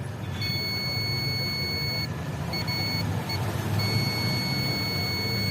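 A steady high-pitched electronic beep, cutting out briefly a few times in the middle, over a low hum.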